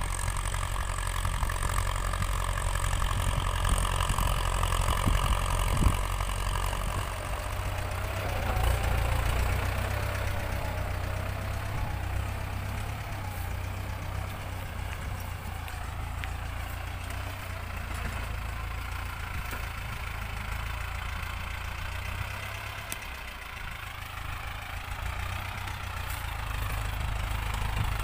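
Ford 6610S tractor's four-cylinder diesel engine running steadily under load as it pulls a seven-disc plough through sandy soil. It is loudest in the first few seconds, drops a little in the middle and grows louder again near the end.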